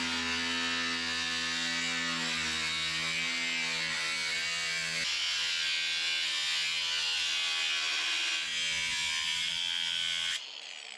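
Cordless angle grinder with a cut-off disc cutting thin sheet metal: a steady motor whine with a grinding hiss over it, the pitch shifting slightly as the disc bites. It is switched off about ten seconds in.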